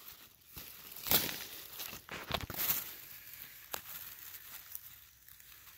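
Hand digging and scraping in forest soil and dry leaf litter to unearth a yellowroot plant: irregular crackling and scraping, with a few sharper scrapes in the first half.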